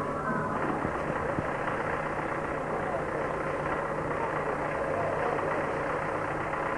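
Street noise: an engine running and indistinct voices over a steady low hum.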